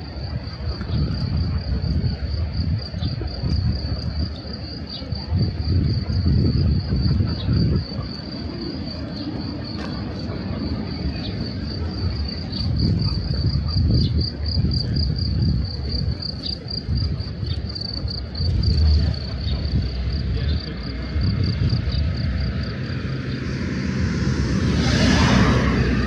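Insects keep up a steady, high-pitched pulsing trill over a low, uneven rumble. Near the end a broad rushing sound swells up as a vehicle passes.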